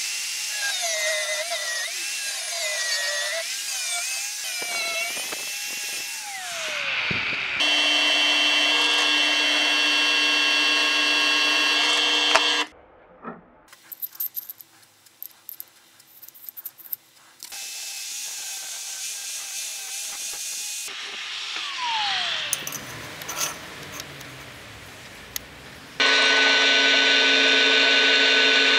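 Angle grinder grinding a steel bar, its pitch wavering under load, then winding down. After that a benchtop drill press runs in several separate stretches, and near the end it is drilling into a steel block.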